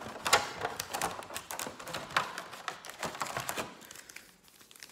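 Pokémon booster packs and their packaging handled by hand: a quick run of crinkling crackles and clicks that thins out near the end.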